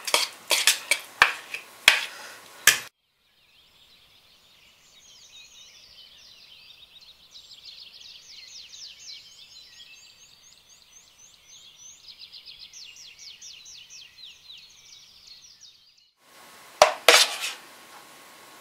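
A metal spoon clinking and scraping against a ceramic bowl while thick sausage gravy is stirred, stopping sharply about three seconds in. Then a long stretch of faint, high, rapid chirping, ended by a sharp clink or two of the spoon near the end.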